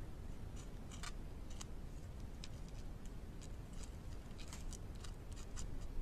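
Beaver gnawing a tree trunk: irregular crisp clicks and crunches of its incisors biting wood chips, some coming in quick clusters, over a low steady rumble.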